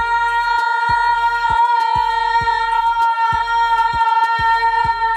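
Music: a long held, choir-like vocal note over a steady beat of about two beats a second.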